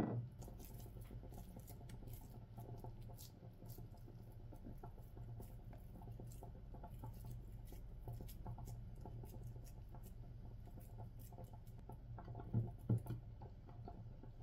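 Hands squishing and patting a raw minced-meat mixture, shaping köfte patties by hand: soft wet pats and small sticky clicks, with a couple of louder knocks near the end. A steady low hum runs underneath.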